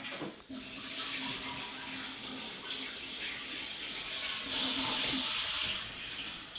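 Water running, like a tap into a sink, as a steady rush, with a louder hissing surge for about a second near the end.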